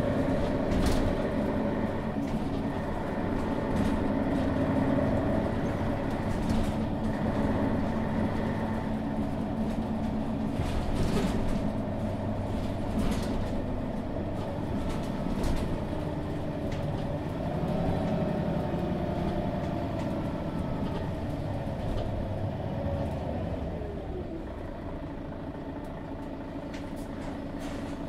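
Mercedes-Benz Citaro G articulated bus's Daimler OM 457 hLA diesel engine running as the bus drives, with some rattles and clicks. A whining tone rises and then falls away between about 17 and 24 seconds, after which the sound turns quieter and steadier.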